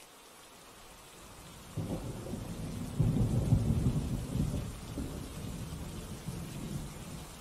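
A deep rumble comes in suddenly about two seconds in, swells a second later and slowly dies away, over a steady soft hiss.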